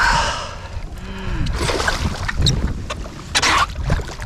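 A hooked smallmouth bass thrashing at the water's surface beside a kayak as it is brought to the net, in three or four short bursts of splashing.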